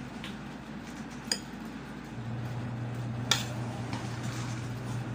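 Tableware clinking: two sharp clinks about two seconds apart, over a steady low hum that comes in about two seconds in.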